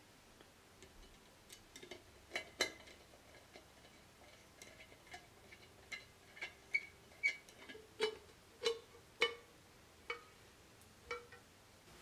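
Screwdriver driving a screw into a metal plant-stand top: a series of sharp metallic clicks, about two a second at their thickest, each with a short ring.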